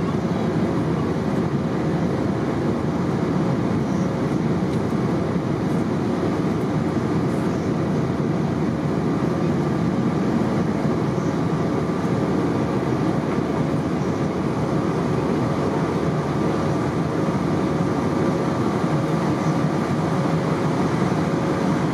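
Steady cabin noise of an Airbus A320 airliner in flight: a constant engine and airflow roar, with a faint steady hum over it.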